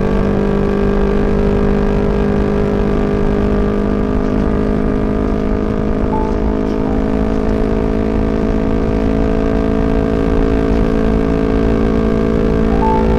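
Yamaha MT-25 motorcycle's 250 cc parallel-twin engine running at a steady cruising speed under way, with road and wind noise.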